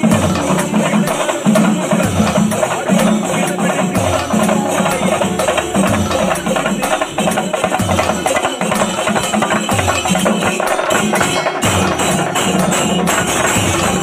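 Percussion-heavy music: fast, dense drum strikes over a low beat that comes about every second.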